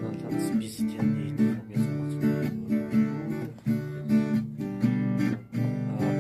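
Background music: acoustic guitar, strummed and plucked, with a steady run of notes.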